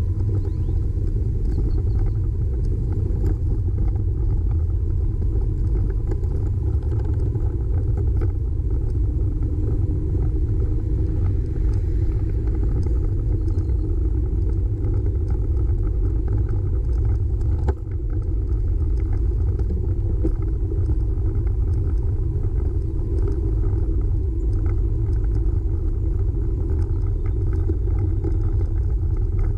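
Steady wind rumble buffeting the microphone of a camera riding along on a moving bicycle.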